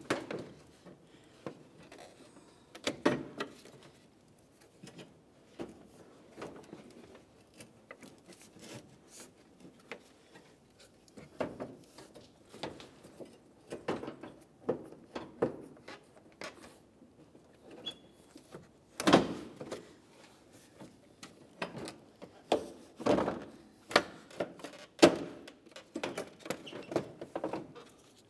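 Plastic front bumper cover of a Honda Civic being lifted and worked into place on the car's front end: irregular knocks, clunks and rattles of plastic against the body, with a few louder thunks.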